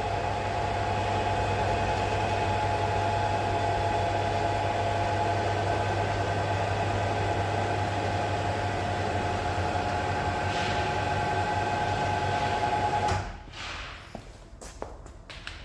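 Electric hydraulic pump motor of a vehicle lift running steadily with a hum and a higher whine as the car is raised, stopping suddenly about 13 seconds in, followed by a few clicks.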